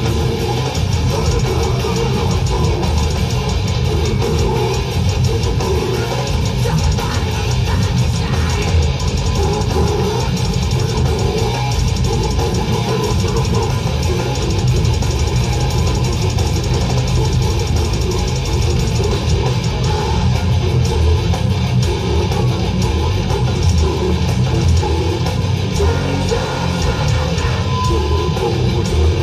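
Death metal band playing live: distorted electric guitars, bass and drums in a dense, loud, unbroken wall of sound, heard from the audience at a club show.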